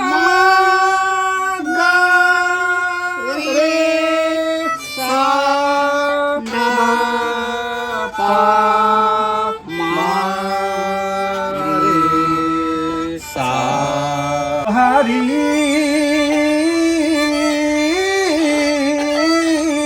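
A serja, the Bodo bowed string instrument, bowed in a slow melody of held notes, each sliding up into pitch. From about 15 seconds in it moves to a continuous, wavering line with quick ornaments.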